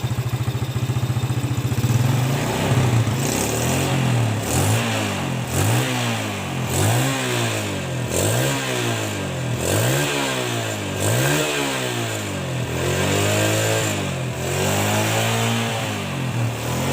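Yamaha Jupiter Z's single-cylinder four-stroke engine idling, then revved up and down in repeated throttle blips about once a second, with a few longer revs near the end. The freshly rebuilt engine, fitted with a new oversize piston, runs fairly smoothly with no knocking ('klotok-klotok') left.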